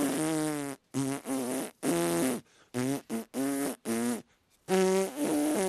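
A cartoon character's voice blowing a string of about ten short, sputtering lip raspberries with a low buzzing pitch: an attempted whistle that produces no whistle at all.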